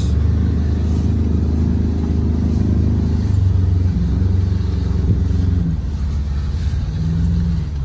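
Ford Ranger Raptor pickup driving over wet sand and mud, heard from inside the cab: a steady, loud low engine and tyre rumble. The engine note shifts a few times and rises briefly near the end.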